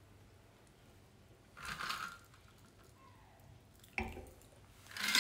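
Shaken cocktail pouring quietly from a cocktail shaker over ice into a wine glass, with a soft splashing swell about two seconds in and a sharp click about four seconds in. A louder clatter starts right at the end.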